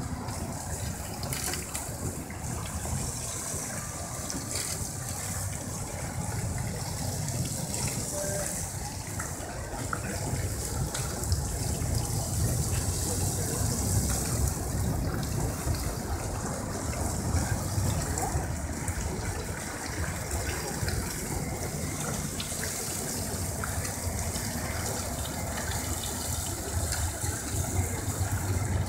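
Water jets of the Tinguely Fountain's metal kinetic sculptures spraying and splashing into the basin, a steady rushing over a low rumble.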